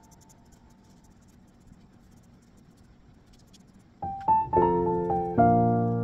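Background piano music. A held chord fades to a very quiet stretch, then piano notes start about four seconds in and carry on loudly.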